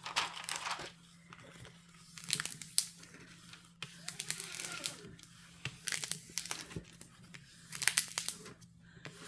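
Clear plastic cover film on a diamond painting canvas crinkling and rustling as it is handled, in several short bursts with quiet gaps between.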